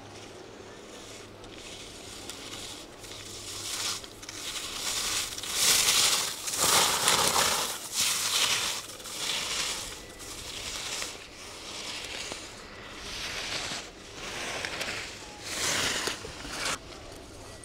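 Skis carving a series of turns on snow, each turn a scraping hiss about a second apart, loudest a third of the way in and weaker towards the end.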